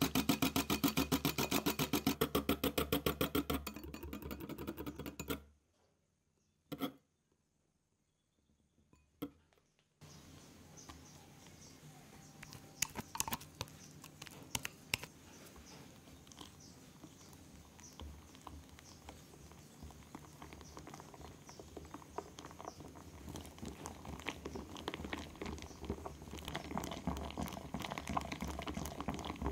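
Wire whisk beating a cream mixture in a glass bowl with rapid, even strokes, stopping about five seconds in. After a few seconds of near silence broken by two clicks, quieter, irregular mixing with scattered clicks against the bowl, building into whisk strokes again near the end.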